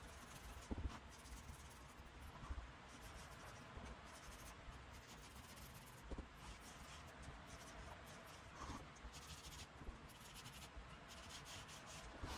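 Faint rubbing and scratching of black ink being applied along the paper edges of a book cover, with a few light taps in between.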